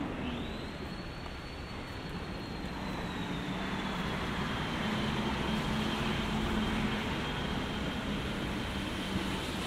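Road traffic on a wet city road: a steady wash of passing vehicles, with a low engine hum through the middle and a thin high whine that rises quickly near the start and then slowly falls.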